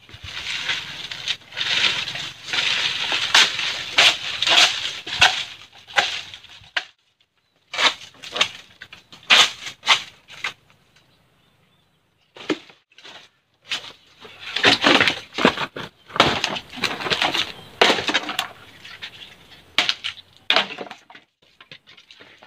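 Machete chopping dry wood and coconut husks: runs of sharp, cracking blows with short pauses between them.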